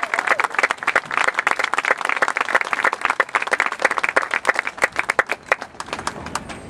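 Crowd applauding, many hands clapping densely, the clapping thinning out and fading near the end.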